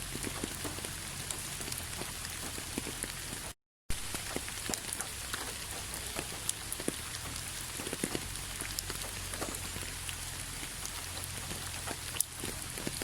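Steady rain, with many individual drops tapping on a surface over the constant hiss. The sound cuts out completely for a split second about a third of the way in.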